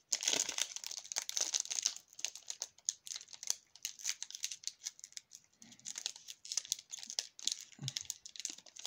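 The foil wrapper of a Pokémon trading card booster pack being torn open and crinkled by hand: a dense, continuous run of crackles, thickest in the first couple of seconds.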